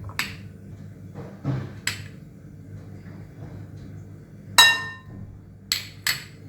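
A spoon clinking against a bowl while ingredients are spooned in: light knocks near the start and about two seconds in, one loud ringing clink a little past halfway, then two quick sharp clinks near the end.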